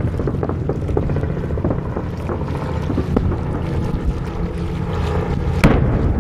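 Fireworks going off some way off: scattered faint pops and crackles over a low steady rumble, with one sharp bang near the end.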